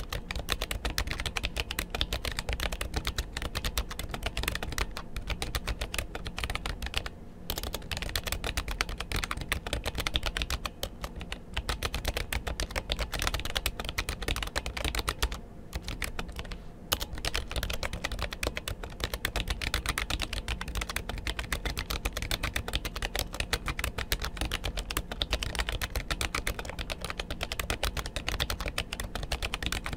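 Fast, continuous typing on a Royal Kludge RK929 slim low-profile mechanical keyboard with Kailh low-profile brown (tactile) switches: a dense stream of key clacks. There are short pauses about 7 seconds in and again around 15 to 17 seconds.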